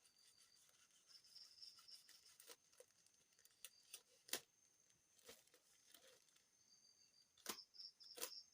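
Faint scattered clicks and short rustles of packaging being handled and opened, with the loudest click about four seconds in and a few more near the end.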